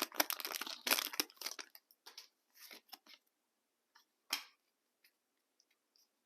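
Foil Pokémon booster pack wrapper being torn open and crinkled. The crinkling is dense for the first second and a half or so, then thins to a few scattered rustles and ticks, and stops about four and a half seconds in.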